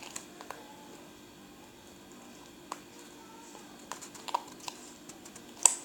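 Scattered light clicks and taps of small plastic colouring bottles being handled and squeezed, with one sharper click near the end.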